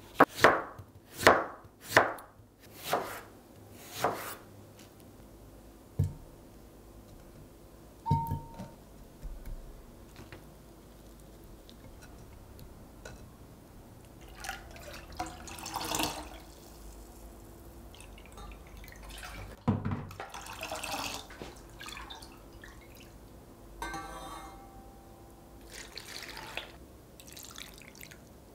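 A knife cuts through small tomatoes onto a bamboo cutting board, five sharp chops in the first four seconds. About eight seconds in there is a clink with a short ring, then softer scattered handling sounds over quiet background music.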